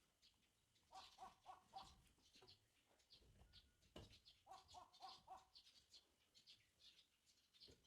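Faint bird calls. A run of four quick notes comes twice, about a second in and again near the middle, among scattered short high chirps.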